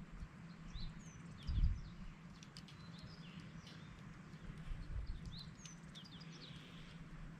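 A wood campfire crackling with scattered sharp pops, while small birds chirp in short bursts, once about a second in and again from about five to six and a half seconds. A dull thump about a second and a half in is the loudest sound, and a fainter one comes near five seconds.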